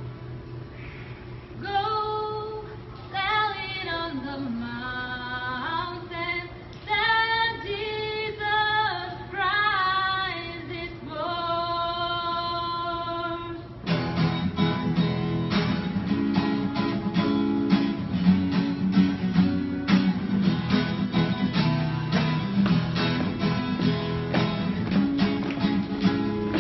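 Vocal group singing slow, held melodic lines. About halfway through, fast rhythmic strumming on an acoustic guitar takes over.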